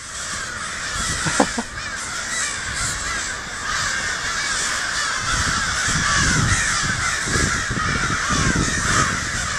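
A large flock of crows cawing all at once, many overlapping calls merging into a continuous, agitated chorus.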